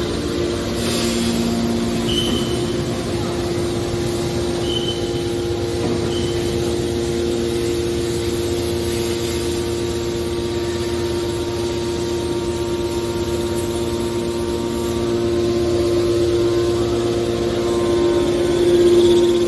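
Aluminium-can baling press running: a steady machine hum with one strong even tone, swelling slightly near the end.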